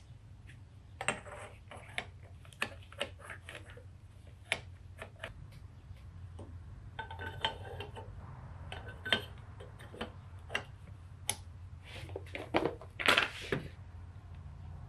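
Small metal parts clicking and tapping against a Dellorto DHLA carburettor body as the auxiliary venturis and chokes are fitted by hand, with a scraping rub about seven seconds in. A low steady hum runs underneath.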